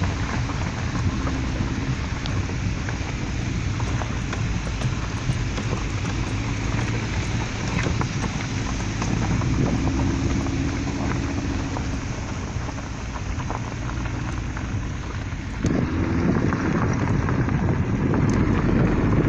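Car driving on a road: steady engine and tyre noise with scattered small ticks, growing louder about fifteen seconds in.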